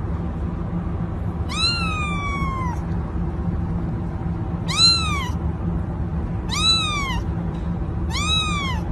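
Young kitten meowing four times in high, thin calls that rise and then fall in pitch, the first one drawn out longest, over a steady low background hum.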